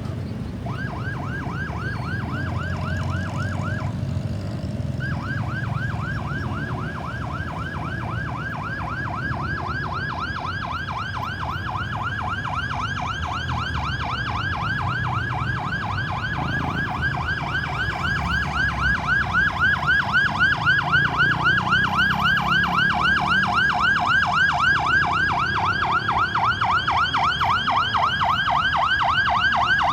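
Ambulance siren on a rapid yelp, a quick up-and-down wail repeating several times a second, with a short break about four seconds in. It grows louder toward the end, over a low rumble.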